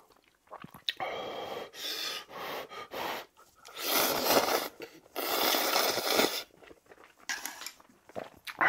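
Spicy instant ramen noodles being slurped. Several short slurps come first, then two long ones about four and five seconds in.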